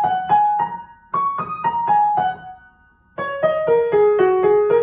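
Piano played slowly: short descending runs of single notes on the black keys, a pentatonic figure passed back and forth between the hands. After a brief pause about three seconds in, a lower descending run follows.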